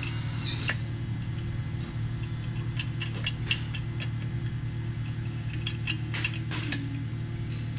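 Carbureted engine of a G-body Chevrolet Malibu idling steadily, with a few light clicks about halfway through and again near the end.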